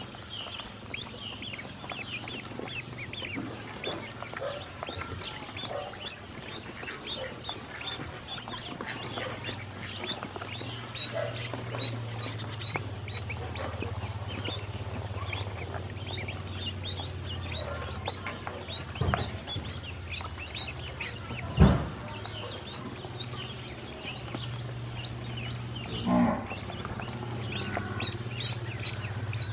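A brood of ducklings peeping continually in short, high, rapid calls, over a low steady hum. A sharp knock about two-thirds of the way through is the loudest sound, with a smaller thump a few seconds later.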